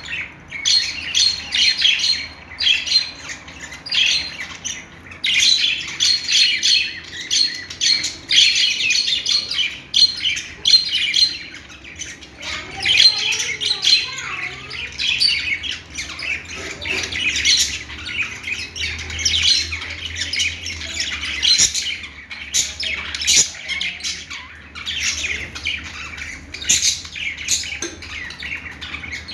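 Budgerigars chirping and chattering continuously in quick, overlapping calls, with harsh squawks mixed in.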